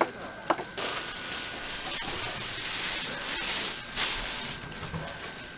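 Thin plastic bag and plastic gloves crinkling as cut pork offal is packed, a steady rustling hiss lasting a few seconds. A single knife tap on a cutting board comes just before it.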